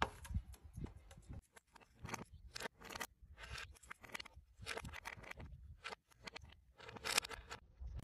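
Faint, irregular small clicks and scrapes of a monk parakeet's beak and claws on a tabletop and a ring-stacking toy with plastic rings.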